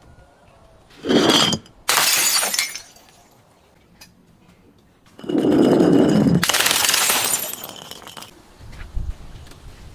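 Glass bottles breaking twice. Each break is a heavy crunch followed by the shatter and clatter of glass pieces, and the second, about five seconds in, is louder and longer.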